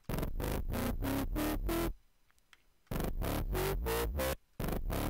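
Distorted dubstep bass from the Sylenth1 software synthesizer playing a pulsing figure of about five stabs a second, its pitch stepping upward through each phrase as a mod envelope sweeps it from low to high. It stops for about a second in the middle and again briefly near the end.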